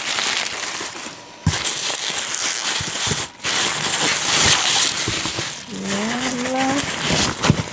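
Plastic film and packing paper crinkling and rustling as they are handled, with two brief pauses.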